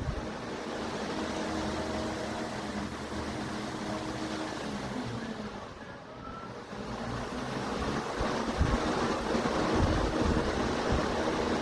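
Electric pedestal stand fan running, its airflow rushing and buffeting against the microphone over a faint motor hum. The rush fades about halfway through and then builds back up.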